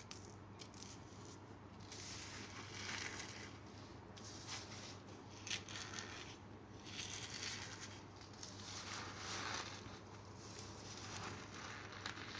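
Packed cornstarch being crumbled and squeezed between the fingers: squeaky crunching in a string of irregular short bursts.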